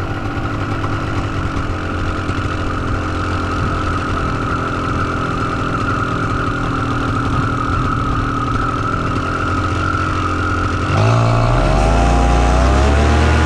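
Paramotor engine and propeller running steadily at low throttle, then about eleven seconds in the throttle opens and the engine climbs quickly in pitch and loudness, holding at high power as takeoff thrust builds.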